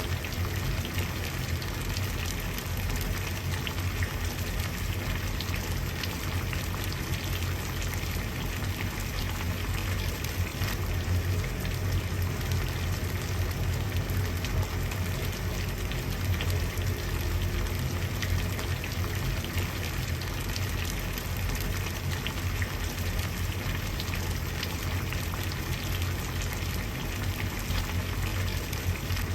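Water at a rolling boil, a steady dense bubbling with a low rumble underneath and no change throughout.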